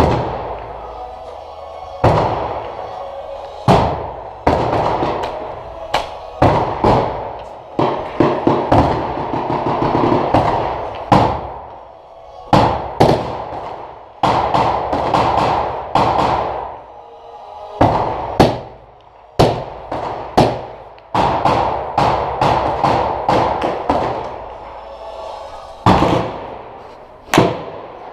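Gunfire: sharp shots at irregular intervals, one to two a second, each ringing off into an echo. Music plays steadily underneath.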